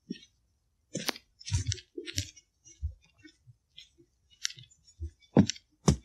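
Footsteps of a person walking on the forest floor, about two steps a second, each a short crackle with a low thud, the last few the loudest.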